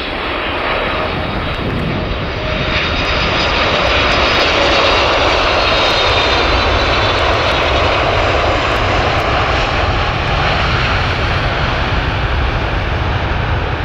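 Jet airliner in flight heard from inside the cabin: a loud, steady rush of engine and airflow noise with a deep rumble, growing a little louder over the first few seconds.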